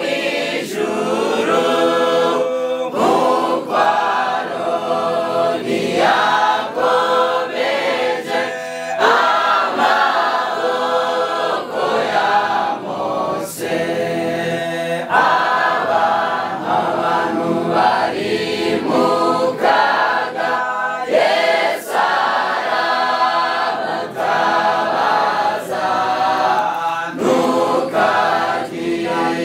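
A choir singing a gospel song, many voices together in phrases with short breaks between them.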